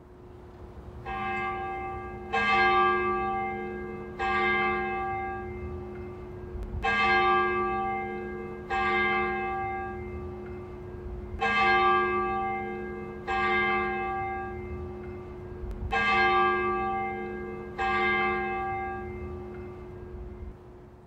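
Church tower bell tolling: one bell struck about nine times, every two seconds or so, each stroke ringing on over a steady hum.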